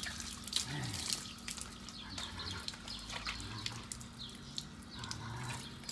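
Water from a garden hose splashing onto a horse's wet coat and the wet paving, with irregular spattering and dripping.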